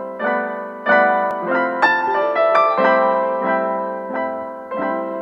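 Background piano music: a chord or note is struck about every half second and left to fade.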